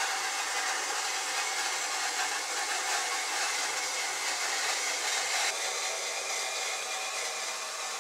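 Toilet tank refilling: a steady hiss of water rushing through the fill valve, its tone shifting slightly about five and a half seconds in. The noise comes from a flush not done all the way, as the owner puts it.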